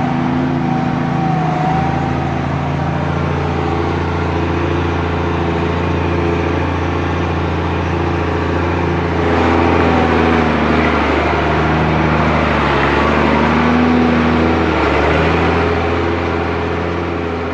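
Mercedes Unimog U1700L truck's six-cylinder diesel engine pulling steadily in four-wheel drive over a rough dirt track. It gets louder and noisier about halfway through, easing off a little near the end.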